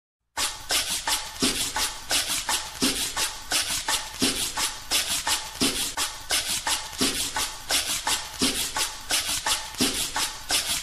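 Music: the opening of a song played by hand percussion alone, a scraped or shaken percussion instrument keeping a fast, steady rhythm of about four to five strokes a second over a low drum beat.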